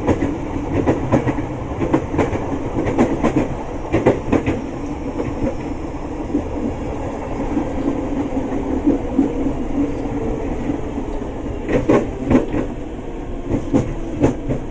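Inside a moving KRL electric commuter train: the steady rumble of the car running on the rails, with wheels clacking over rail joints in clusters near the start and again about twelve seconds in.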